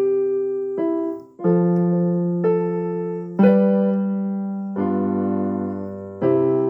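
Background music: slow, sustained keyboard chords, each struck and left to ring and fade before the next, about one every second or so.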